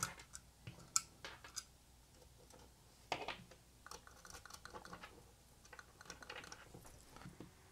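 Faint, scattered clicks and ticks of small hardware being fitted by hand: a washer, lock washer and nut going onto a screw through an L bracket on a radio's metal head unit. A few sharper clicks come in the first three seconds, then a run of light ticks.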